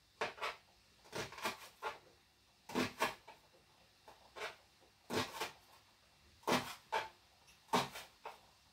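Kitchen knife slicing a shallot into thin rings on a chopping board: short sharp knocks of the blade meeting the board, often two close together, at an uneven pace of roughly one cluster a second.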